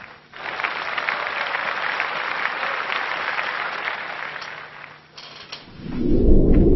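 Applause that fades out after about five seconds, then a low rumbling sound that swells up near the end.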